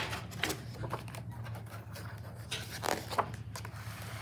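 Paper pages of a picture book being turned and handled, in several short rustling bursts over a low steady hum.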